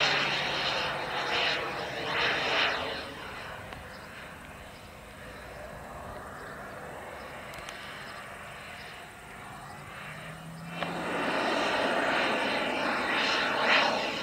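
Small jet turbine engine of a radio-controlled model jet flying past, a rushing whine. It swells loud twice in the first three seconds, drops to a quieter steady rush, then jumps back up loud about eleven seconds in.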